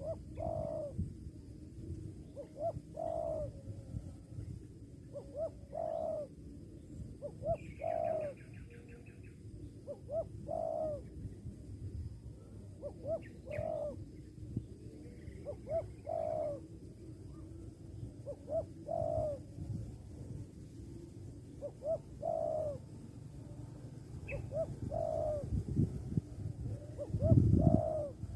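Spotted dove cooing, short coo phrases repeating every second or two over a low steady rumble. A brief high trilling call from another bird comes about eight seconds in, and a loud low thump comes near the end.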